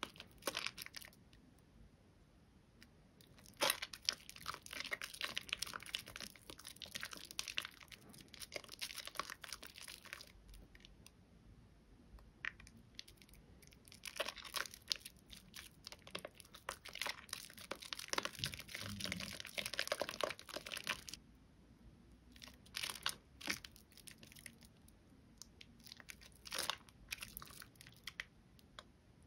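Soaked, mushy Bio Mio bio-soap bar being lathered, with wet crackling and squishing of thick foam. The sound comes in stretches of a few seconds with short pauses between, and shorter bursts near the end.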